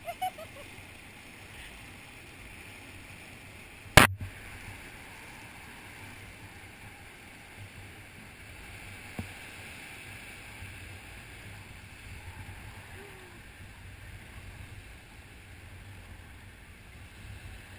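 Steady rushing of wind and sea surf below the gondola, with one sharp knock about four seconds in.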